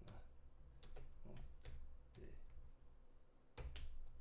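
Typing on a computer keyboard: irregular keystrokes in short runs, with a pause of about two seconds in the middle.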